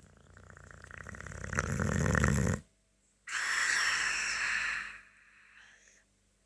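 Sleeping Boxer dog snoring: one long, rattling in-breath that builds in loudness and cuts off sharply, then a breathy, hissing out-breath that fades away.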